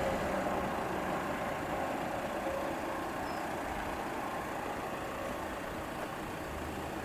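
Vehicle noise, a steady rumble and hiss slowly fading away.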